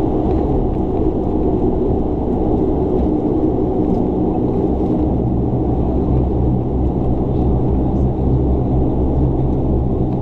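Dash 8 Q400's turboprop engines and propellers droning steadily, heard from inside the passenger cabin as the airliner taxis after landing. The drone is low, with a few steady humming tones.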